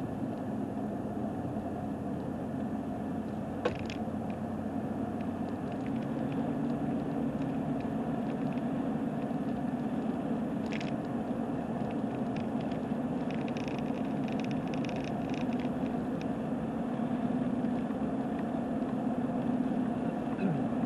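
Steady hum of a car driving at road speed, with a sharp click about four seconds in, another near eleven seconds, and a run of small rattles in the middle: the camera rattling on a rough road.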